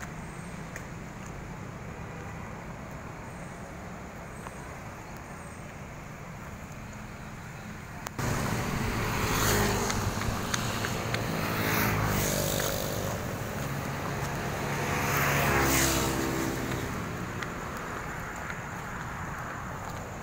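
Vehicle running along a road, heard from on board: a steady running noise that jumps suddenly louder about eight seconds in. It then swells and fades several times, with an engine note rising in pitch as it speeds up.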